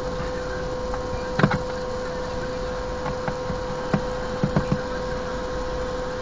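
Car cabin at a standstill with the engine running: a steady hum with a constant whine, and a handful of light, irregular knocks and clicks through the middle.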